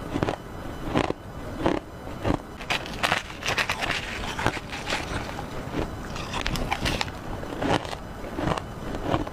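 Ice being crunched between the teeth, close-up: a run of sharp crunching bites about one a second, with a denser stretch of crackling chewing in the middle.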